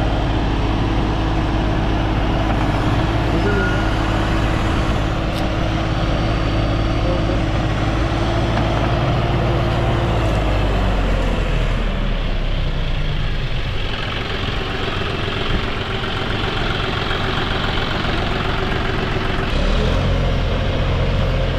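Tractor diesel engine running steadily as it drives a front loader with a bale-grabber attachment; the engine note drops about halfway through and rises again shortly before the end.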